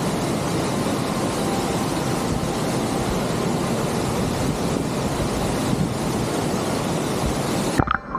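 Waterfall rushing: a steady, even roar of falling water that cuts off suddenly near the end.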